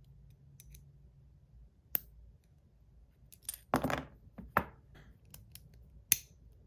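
Parts of a KTS Blood Blade fidget spinner clicking and clinking against each other as it is fitted back together: a sharp click about two seconds in, a quick cluster of clinks a little later, then a few single clicks.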